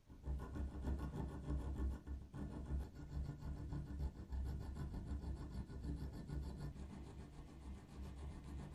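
Steel being worked by hand with an abrasive tool: a steady run of fast scraping strokes that stops briefly a little over two seconds in, then carries on.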